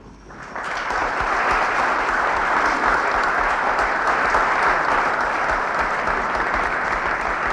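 Large audience applauding, the clapping building up within the first second and then holding steady.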